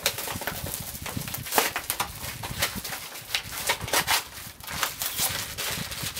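Cardboard blind boxes being torn open and plastic bags crinkling as small vinyl figures are unwrapped: a dense, irregular run of rustles, rips and crackles.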